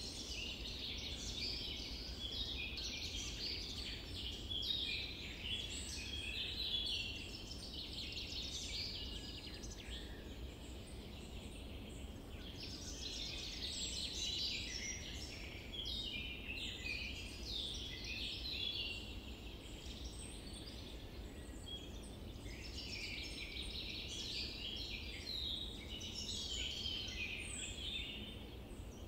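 Songbirds singing and chirping in overlapping bouts, thinning out about ten and twenty seconds in, over a low, steady background noise.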